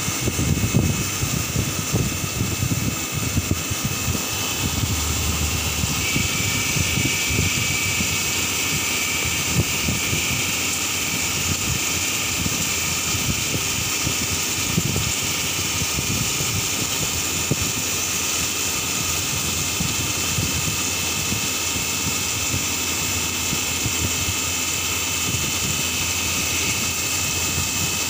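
CNC turning centre rough-turning the outside diameter of a spinning workpiece under flood coolant: a steady machine run with a high whine from the spindle and cut over a rough low rumble, unbroken throughout.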